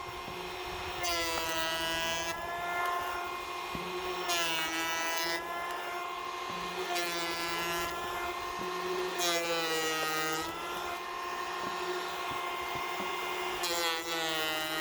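Ryobi 18-volt cordless electric hand planer running with a steady whine, making about five cutting passes over rough-cut cedar. On each pass, roughly a second long, the blades chew into the wood with a rush of cutting noise and the motor's pitch sags under the load, then climbs back as it runs free.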